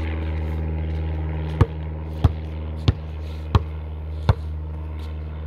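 A rubber basketball dribbled five times in a steady rhythm, about one bounce every two-thirds of a second, each bounce a sharp knock. A steady low mechanical hum runs underneath.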